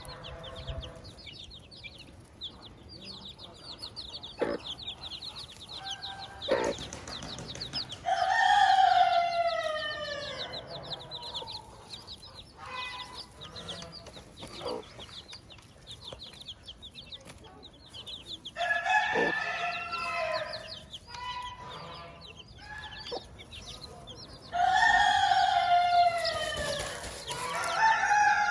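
Chicks peeping fast and high with a hen clucking. A rooster crows three times: about 8 seconds in, about 19 seconds in and about 25 seconds in, each crow a long call falling in pitch.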